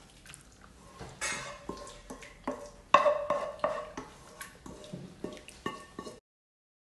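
Wooden spoon knocking and scraping against a non-stick frying pan as a thick yogurt-chicken sauce is worked out into a glass baking dish: an uneven string of knocks with a short ring, the loudest about three seconds in. The sound cuts off suddenly near the end.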